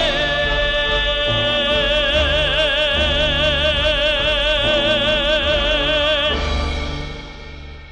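A solo singer holds the song's last word, 'jiān', in one long high note with a wide vibrato over instrumental accompaniment. The voice stops about six seconds in and the music fades out.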